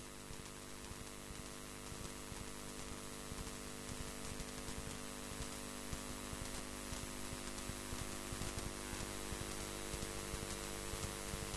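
Steady electrical hum with several constant tones, under static hiss with faint irregular crackles. The programme audio has dropped out, leaving only the line noise.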